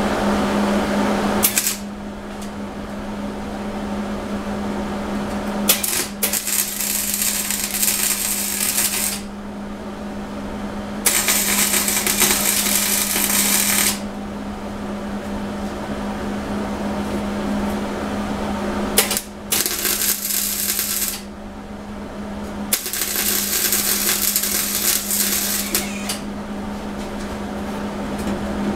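MIG welder laying short spot and tack welds on sheet steel: crackling arc bursts of two to four seconds each. One burst trails off at the start, then four more follow with pauses between them, over a steady hum.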